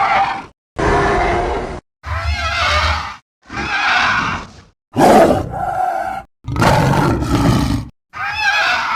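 Film sound-effect cries of a giant mutated Komodo dragon: a series of about seven separate roars, each about a second long, split by short silences.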